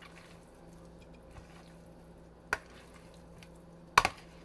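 Metal kitchen tongs clicking against a mixing bowl while tossing seasoned raw meat: a light click about halfway through and a sharper double click near the end, over a faint steady hum.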